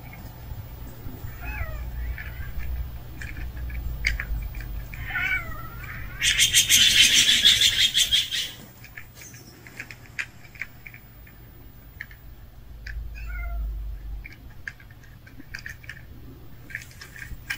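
Stray cats at a food tray: a few short, soft meow-like calls, and about six seconds in a loud, harsh rasping noise that lasts about two seconds.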